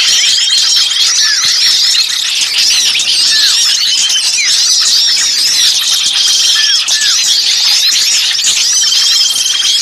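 A dense, loud chorus of many small songbirds calling at once, with rapid high chattering and scolding notes, downward-sweeping whistles and a buzzy trill that comes back three times. It is a bird-lure recording of agitated small birds, used to draw other birds in.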